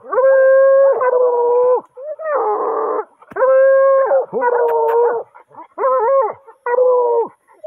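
Hunting hounds baying: about seven long howls in quick succession, each held on a steady pitch, one rougher and noisier than the rest. The hounds are baying at an armadillo holed up in the ground.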